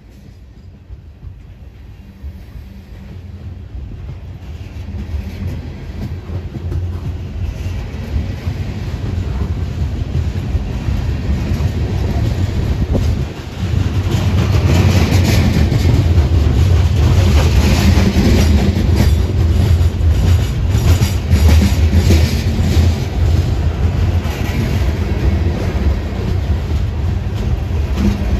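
Aluminum coal gondolas of a freight train rolling past close by: a low rumble with wheels clicking over the rail joints, building over the first dozen seconds and then staying loud.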